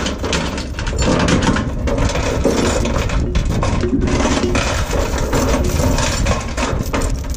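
Heavy steel tie-down chain clinking and rattling as its links are lifted, shaken and pulled through by hand to work out a knot.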